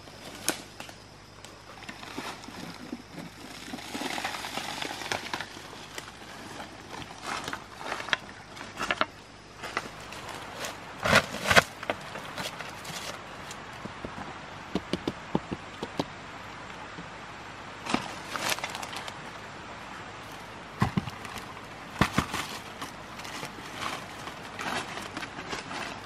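Footsteps and rustling through dry leaf litter and forest undergrowth, with crackling leaves and twigs and scattered sharper cracks, the loudest about eleven seconds in and again near twenty-two seconds.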